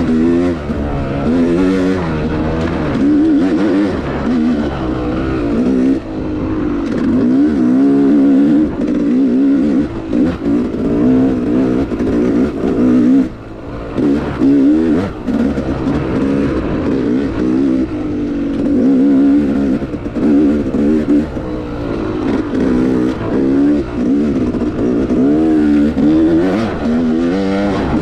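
Yamaha YZ250X two-stroke dirt bike engine under way, its pitch climbing and falling repeatedly as the throttle is worked, with a brief drop in level about halfway through when the throttle is let off.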